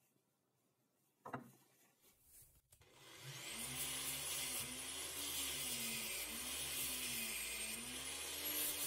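A sharp click in a quiet opening, then about three seconds in an angle grinder fitted with a sanding disc starts and runs steadily. The pitch of its whine dips and recovers repeatedly as a small steel bracket is pressed against the spinning disc to sand its edges.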